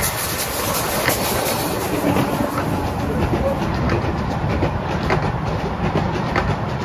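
15-inch gauge miniature train passing close by: the locomotive and a line of covered coaches rumble steadily past, with occasional sharp clicks from the wheels on the track.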